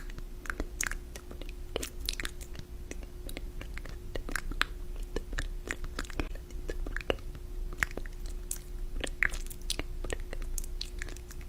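Close-miked eating: irregular crunching and chewing, many small crisp clicks at an uneven pace, over a faint steady hum.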